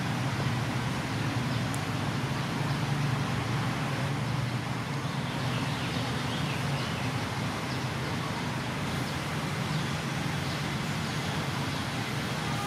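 Steady background rumble and hiss with a continuous low hum, like distant road traffic.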